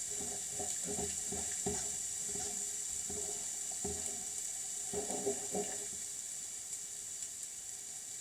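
Cornflour-thickened sauce bubbling at the boil in a pan while being stirred: a steady hiss with irregular soft knocks and bubbling a few times a second, busiest about five seconds in.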